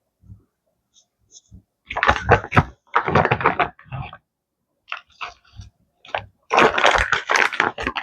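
Bursts of rustling, clicking and light knocks from handling food at a kitchen counter, as cooked turkey is picked over for its white meat.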